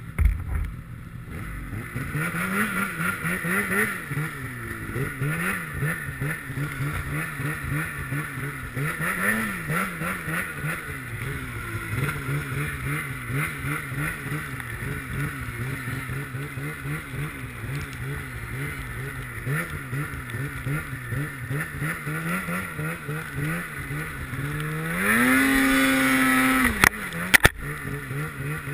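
Snowmobile engine running under load through deep powder, the revs rising and falling over and over with the throttle. Near the end the revs climb sharply and hold high for a couple of seconds before dropping, followed by two sharp knocks.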